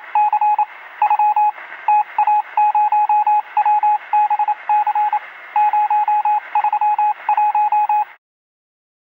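Intro sound effect of a single-pitched electronic beep keyed on and off in quick, irregular groups, with a thin, narrow-band sound. It stops abruptly about eight seconds in.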